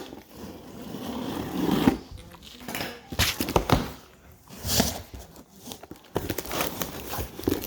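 Packaging being handled: rustling and crinkling with scattered knocks and clicks, as the boxed amplifier is unpacked.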